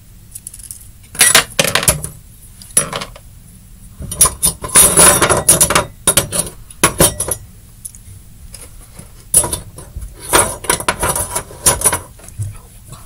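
Small hard items such as plastic tubs and bottles clattering and clinking together as they are rummaged through and put into a drawer, in three bouts of handling, the longest and loudest about four to seven seconds in.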